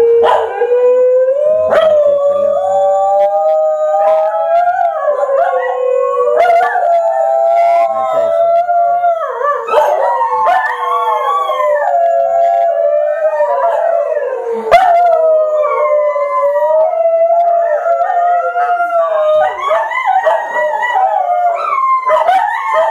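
Several dogs howling together in long, overlapping, wavering howls that rise and fall in pitch, one dog answering the howls of others. A few sharp clicks sound through it, the loudest about fifteen seconds in.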